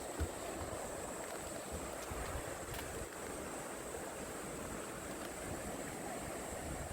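Mountain valley stream flowing: a steady rushing of water.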